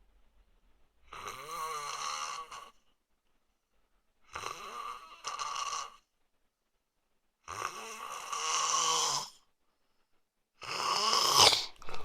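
A sleeping man snoring. There are four rasping snoring breaths a couple of seconds apart, with quiet pauses between them, and the last one is the loudest.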